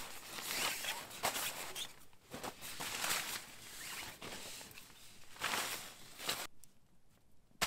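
Nylon tent fabric rustling and swishing in irregular bursts as a groundsheet is pulled and smoothed into place, with small scrapes and clicks. It stops abruptly about six and a half seconds in, and a single sharp click comes near the end.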